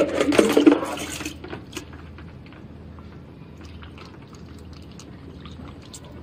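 Water poured from a plastic basin into a plastic funnel, splashing loudest in the first second, then running in more quietly as the machine's water tank fills through its inlet.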